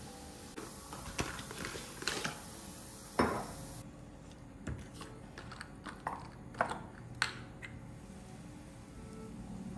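Kitchenware being handled: a series of irregular clinks and knocks, about ten in all, the loudest about three seconds in.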